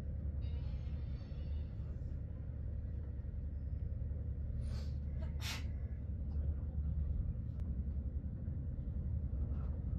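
Steady low rumble of a moving passenger train heard from inside the carriage, with two short hissing sounds about halfway through.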